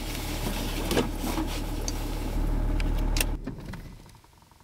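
Opel Omega 2.5 DTI's inline-six turbodiesel running, heard from inside the cabin, then switched off a little over three seconds in and dying away within about a second.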